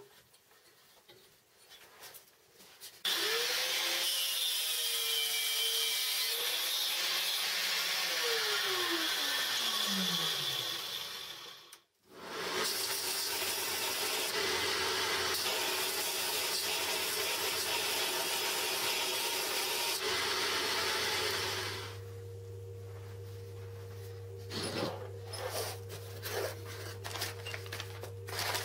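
Angle grinder in a cut-off stand switched on and cutting, its pitch falling steeply as it winds down after about 8 seconds. Then a belt grinder runs steadily while a small steel piece is ground against the belt, stopping about 21 seconds in, followed by a lower steady hum with light handling clicks.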